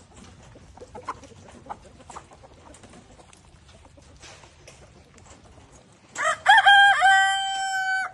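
Chickens cluck and peck softly, then a rooster crows once, loud, about six seconds in. The crow ends on a long held note of nearly two seconds.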